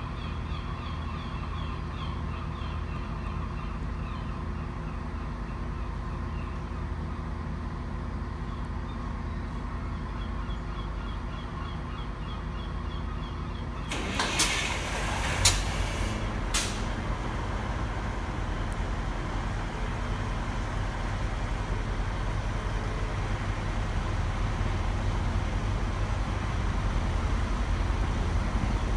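Diesel trains in a station: a steady low engine rumble, growing louder over the second half as an InterCity 125 (HST) diesel power car draws in along the platform. About halfway there are three brief, sharp, high noises, the loudest sounds.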